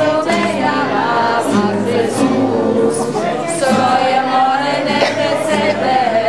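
A group of children and adults singing a song together.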